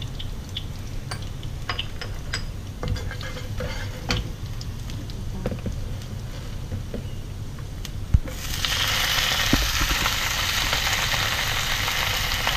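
Minced garlic frying in oil in a pan, with scattered small crackles and a spatula stirring. About eight seconds in there is a sharp knock as spinach is thrown into the pan, and a loud, steady sizzle of hot oil spluttering over the leaves starts at once.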